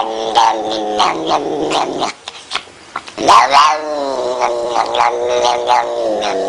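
Pet cat yowling in two long, drawn-out wails. The first runs about two seconds; after a short break, the second starts about three seconds in with a rise and fall in pitch and carries on to the end.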